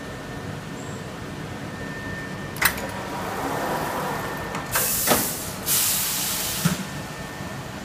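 High-frequency TPU shoe-upper welding and embossing press at work: a sharp click as the loaded tray is pushed in, a sliding rumble, then two bursts of compressed-air hiss with clunks as the pneumatic press cycles, over a steady machine hum.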